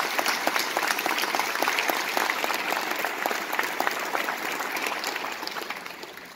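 Large audience applauding, many hands clapping at once; the applause dies away over the last second or so.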